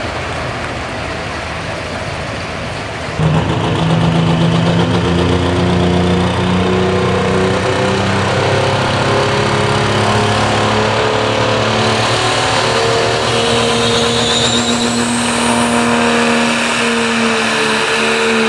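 Diesel four-wheel-drive pickup truck pulling a weight-transfer sled at full throttle: the engine comes in loud and abrupt about three seconds in and runs hard and steady, its pitch drifting slowly. A high rising whine shows for a few seconds in the middle.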